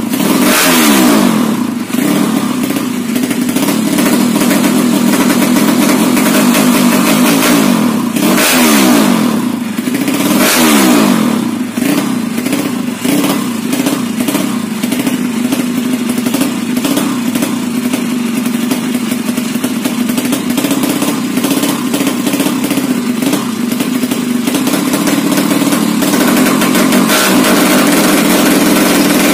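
Modified Honda C70 motorcycle engine running, blipped three times: at the start, about eight seconds in and about ten seconds in. Each time the revs fall back to a steady idle.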